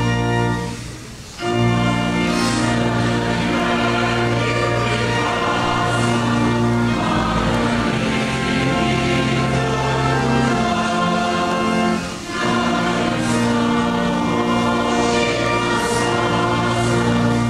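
Choral hymn music: a choir singing slow, held chords, with short breaks between phrases about a second in and again about twelve seconds in.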